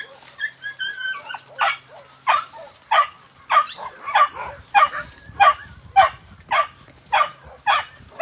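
A dog barking over and over in a steady rhythm, about one and a half barks a second, after a few thin high whines at the start.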